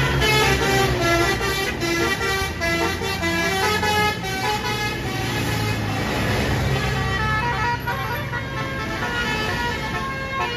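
Basuri telolet multi-tone air horn on a bus playing a fast melody of short notes, one after another, with the bus engine running low underneath.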